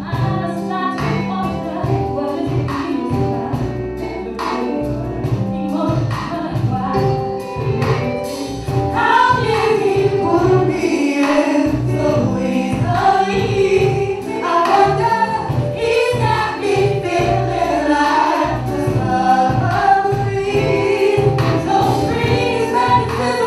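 A live band playing a song, with a woman singing lead and backing singers behind her over keyboards, bass guitar and drums. The music gets louder about a third of the way through.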